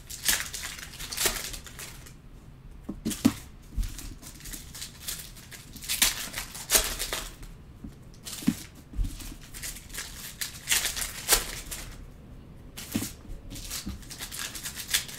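Trading card packs being opened and the cards handled: crinkling of plastic pack wrappers and rustling of cards in irregular short bursts.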